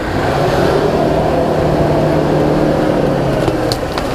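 Off-road 4x4's engine running hard at high revs under full throttle, a loud steady drone that swells in the first half-second and holds.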